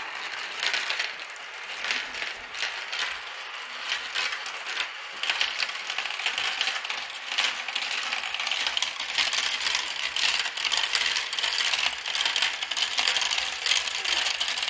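A handful of marbles rolling and clattering through a plastic marble run: swirling around plastic funnel bowls and rattling down tubes and tracks. It is a dense, continuous clatter of small clicks, busier from about five seconds in.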